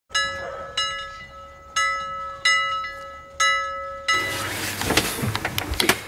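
Five bell-like chimes, struck one at a time at uneven intervals, each ringing and fading. About four seconds in they stop, and a burst of rustling with sharp clicks follows.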